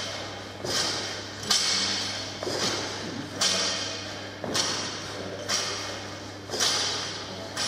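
Loaded barbell worked through fast deadlift reps, a short knock about once a second as the bar comes down, each echoing in a large gym hall.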